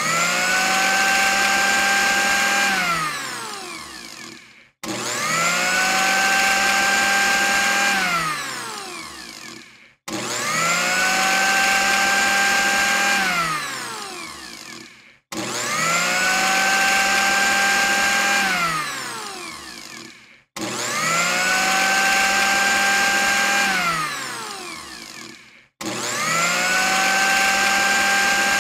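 Countertop blender motor switched on and off six times. Each time it whines up to speed within about a second, runs steadily for about two seconds, then winds down with a falling pitch before a brief gap.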